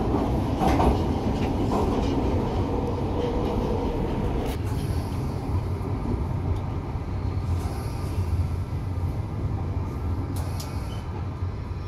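London Underground train running inside a tunnel station, heard from inside the carriage: a steady low rumble of wheels and running gear that slowly dies away as the train slows into the platform, with a few faint clicks.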